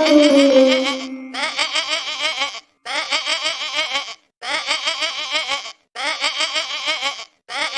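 A goat bleating over and over: about six wavering bleats, each a second or so long, with short gaps between them. A falling tone glides down during the first bleat.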